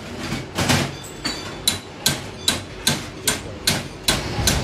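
Repeated sharp metal strikes at an even pace, about two and a half a second, each ringing briefly.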